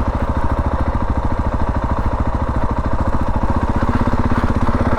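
Husqvarna 701's single-cylinder engine running steadily while the motorcycle is ridden, its firing pulses plain, picking up slightly about four seconds in.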